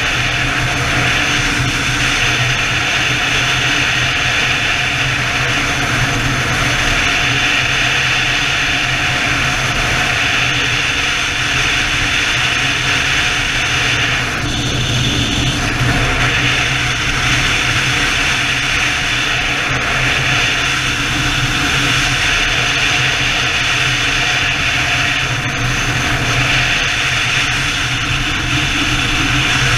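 Steady rush of wind and engine and road noise from a BMW motorcycle cruising at highway speed, with wind noise on the bike-mounted microphone.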